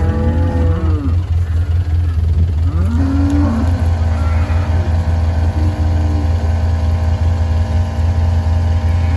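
Cattle mooing several times, long low calls that slide in pitch, over a steady engine hum.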